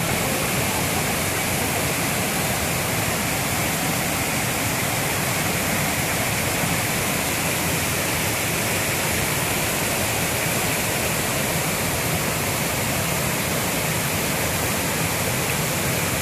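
Mountain creek rushing over boulders in whitewater cascades: a steady, unbroken rush of water.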